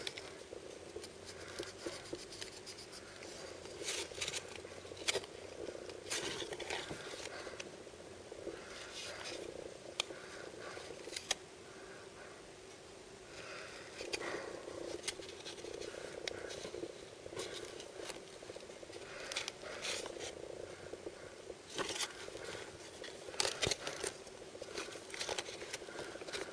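Blind-bag and blind-box packaging being handled and opened: plastic and foil crinkling and rustling, with scattered sharp clicks and taps that come in clusters.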